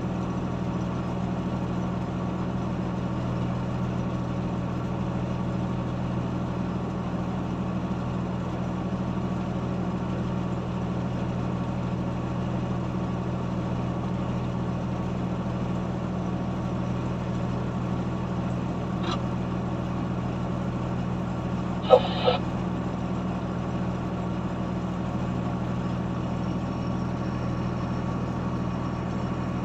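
Heavy diesel engine running steadily at idle, with one short, loud sound about 22 seconds in.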